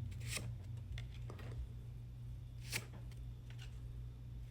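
Pokémon trading cards being handled and slid past one another by hand: three short, soft card flicks, the loudest near three seconds in, over a steady low hum.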